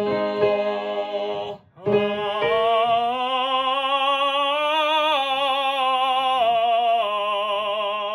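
A voice student singing a legato vocalise in operatic style with vibrato, over steady piano chords. There is a short breath break about a second and a half in, then one long phrase that swells and climbs, then steps down in pitch.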